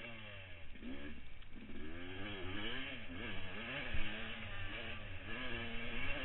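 Motocross bike engine heard from the rider's helmet, revving hard out of a corner and accelerating, its pitch repeatedly climbing and dropping back. A thump about four seconds in.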